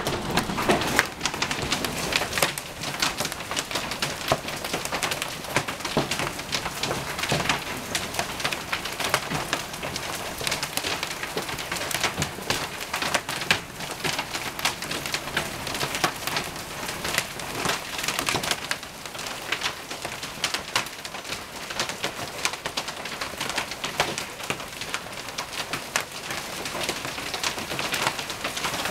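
Hailstones striking hard surfaces in a storm: a dense, unbroken clatter of many small sharp impacts over a rushing hiss.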